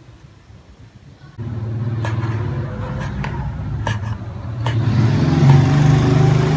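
Kitchen knife knocking on a wooden chopping board while slicing boiled pig skin, a handful of sharp knocks. Under it, a loud low drone starts suddenly about a second and a half in and grows louder near the end.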